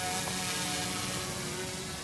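T3 tricopter's three brushless motors and propellers whirring steadily in flight, several steady tones in the whir shifting slightly in pitch as the throttle changes.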